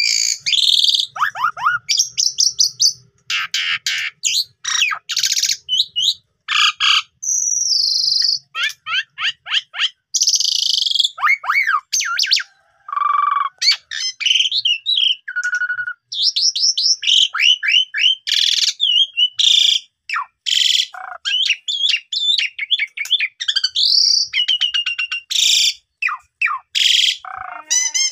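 Asian pied starling (jalak suren) singing a long, varied song: quick rising and falling whistled slurs, a few held whistles, and harsh rasping notes, in phrases broken by short pauses.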